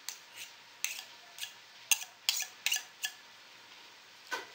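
Metal spoon and fork clinking against a glass salad bowl while tossing sliced endive with crumbled Roquefort: about a dozen light, irregular clicks.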